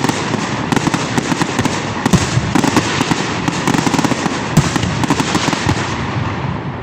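Fireworks going off in quick succession: a dense, continuous crackle packed with many sharp bangs and pops, easing off slightly near the end.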